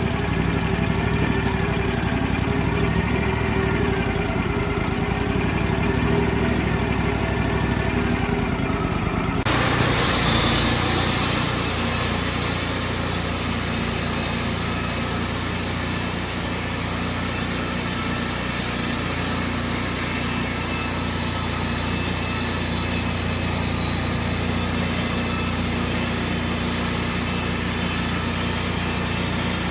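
Wood-Mizer sawmill's engine running steadily. About a third of the way in the sound changes suddenly and a strong hiss comes in over the engine and stays.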